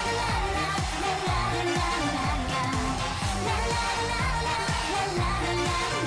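K-pop girl-group dance-pop song playing loud: singing over a driving electronic beat with a steady kick drum and bass.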